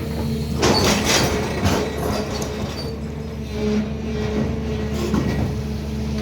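SANY excavator's diesel engine running steadily, with a loud burst of harsh noise about a second in and several sharper metallic knocks after it as the machine works.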